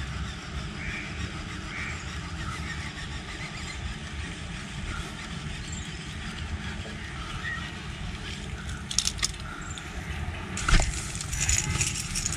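Steady outdoor background noise with a low rumble on an action camera's microphone, with a few sharp clicks and knocks about nine and eleven seconds in.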